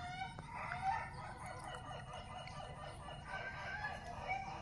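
Faint chickens calling, with a rooster crowing and hens clucking.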